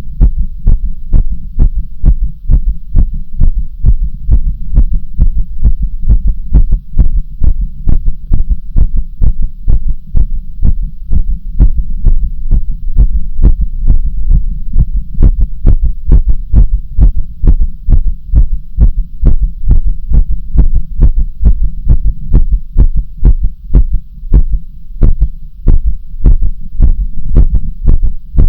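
Human heartbeat, beating at a steady, even rhythm with a low hum underneath.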